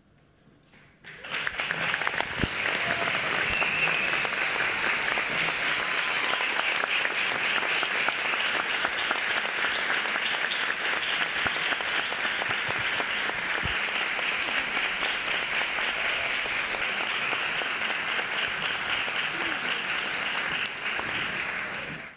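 Audience applauding, starting about a second in after a brief hush and cutting off suddenly near the end.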